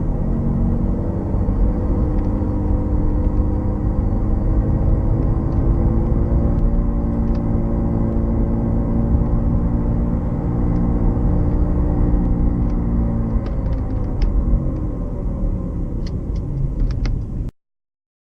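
Car with a bad wheel bearing on the move: a loud, steady rumble with a droning hum whose pitch shifts slightly with road speed, the sign of a worn wheel bearing. A few light clicks near the end, then the sound cuts off suddenly.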